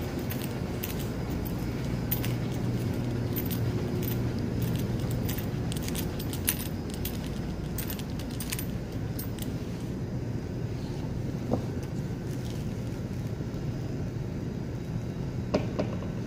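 Light rapid clicks and jingles, thick for the first ten seconds and then sparse, over a steady low rumble: handling noise from someone walking with a phone and then leafing through a book.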